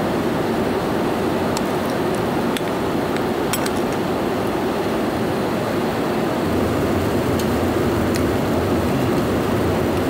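Steady airliner cabin noise in flight, with a few light clinks of a metal spoon against a ceramic bowl, scattered through it.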